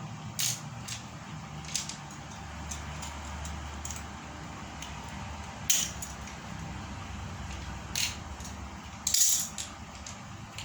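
Loose metal parts of a meat-grinder-type pellet machine clinking and knocking as they are handled. There are about six scattered sharp clinks, the loudest about halfway through and a quick cluster near the end, over a low steady hum.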